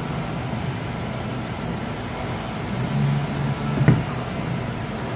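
Steady low mechanical hum, as of a fan or shop machinery, with a single sharp click about four seconds in.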